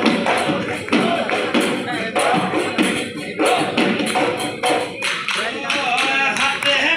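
Live Bihu music: quick, steady dhol drumming with a bright metallic jingle over it, and a voice singing a wavering melody from about five and a half seconds in.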